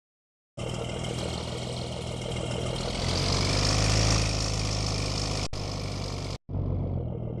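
Yamaha R25 motorcycle engine idling, revving up once about three seconds in and settling back to idle. The sound breaks off briefly twice near the end.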